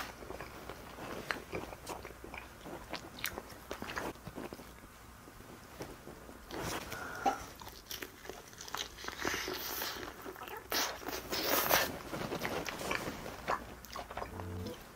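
Close-miked eating sounds: crunchy bites into crispy Korean fried chicken and chewing, with louder crunching about seven and eleven seconds in.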